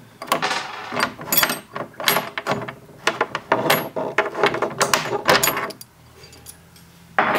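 A T40 Torx L-key and a 13 mm wrench turning out a D-ring bolt in a UTV's plastic cargo bed: irregular metal clicks and clinks of tool against bolt. They go quieter for the last second and a half or so, and a sudden louder sound comes right at the end.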